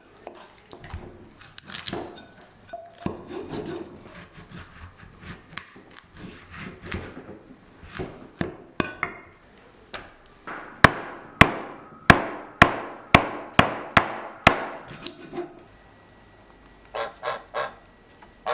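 Light scraping and knocking, then a run of about eight sharp knocks at roughly two a second, the loudest sounds here. Near the end a goose honks several times in quick succession.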